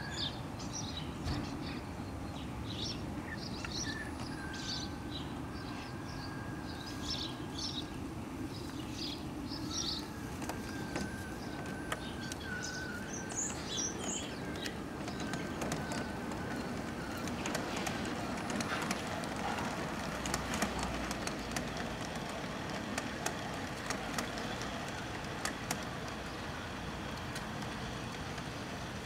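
A G-scale model train (an LGB Rhaetian Railway Ge 4/4 pulling Bernina Express coaches) runs on garden track with a steady low hum, and from about halfway through there are irregular light clicks. Small birds chirp through the first half.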